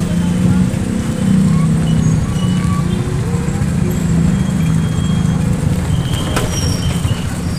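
Loud, steady road and traffic noise from riding in a bicycle pedicab over a rough street: a low rumble with rattling, and a single sharp click about six seconds in.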